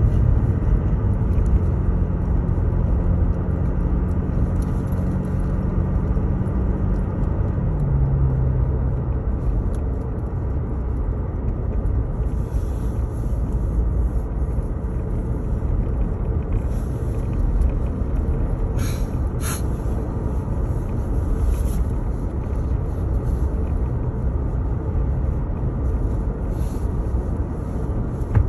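Car engine and road noise heard from inside the cabin while driving, a steady low rumble. An engine hum steps down in pitch about eight seconds in, and two short clicks come about two-thirds of the way through.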